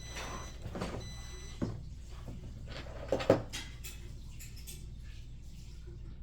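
Handling noise from plastic toy paintball gun parts: scattered clicks and knocks, the loudest a quick double knock about three seconds in.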